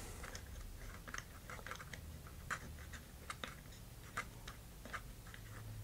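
Faint, irregular small clicks and ticks as a tiny thumb screw is turned by hand into the wooden bulkhead of a model rocket's electronics bay.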